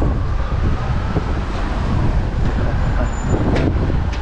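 Steady low rumble of city street traffic, with a few faint knocks near the end.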